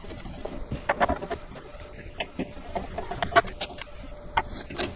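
Irregular light clicks and knocks as a wooden basket track and its bolts are handled and fitted against a wooden changing-table frame.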